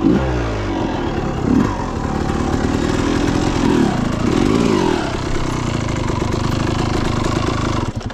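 Dirt bike engine running while riding, revving up and down several times, then running steadier before dropping away sharply at the very end.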